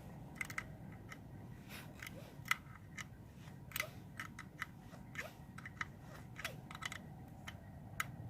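Irregular small clicks and taps of hand tools and metal parts as a new ignition condenser is fitted to a Kawasaki 250 Meguro SG motorcycle.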